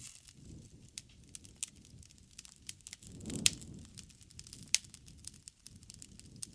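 Wood fire crackling, with scattered sharp pops over a low rush. The rush swells about three seconds in, and the two loudest pops come at about three and a half and five seconds.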